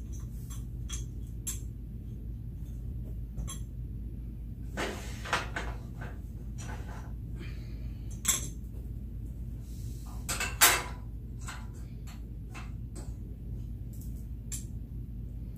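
Small plastic and metal furniture-assembly parts being handled: irregular clicks, taps and clinks as pieces are picked up, set down and fitted, with sharper knocks about eight and ten and a half seconds in.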